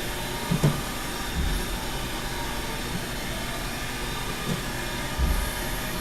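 Haas VF-2 vertical machining center running under power: a steady mechanical hum with several thin whining tones, and a few short dull knocks about half a second, one and a half and five seconds in.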